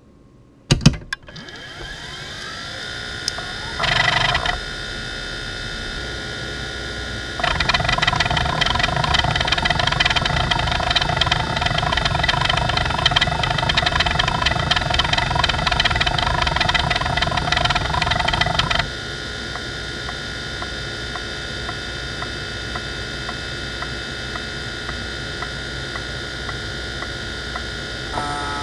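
An NEC D3122 20 MB MFM hard drive clicks on about a second in, and its 3600 rpm spindle motor spins up with a rising whine. About four seconds in there is a short burst of head movement. From about seven to nineteen seconds the heads chatter in rapid random seeks during a Spinrite benchmark. After that the spindle whine runs steady, with faint regular ticks.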